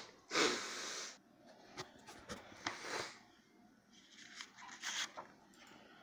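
Homemade slime being squeezed and stretched in the hands: a string of short, irregular squishing and crackling noises with small clicks, the loudest about half a second in.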